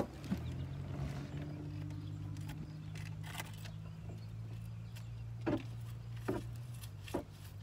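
A handful of sharp plastic clicks and knocks, spaced irregularly and loudest in the second half, from a hand-held litter grabber snapping shut on wrappers, over a steady low hum.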